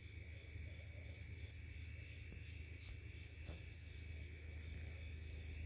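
Steady night insect chorus, crickets chirring in an unbroken high trill, over a faint low hum.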